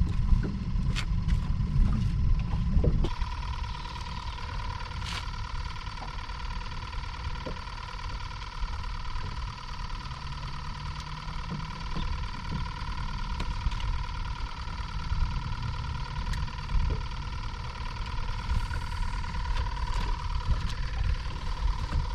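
Wind rumbling on the microphone aboard a small boat, with a steady high-pitched hum that sets in about three seconds in, and a few light knocks.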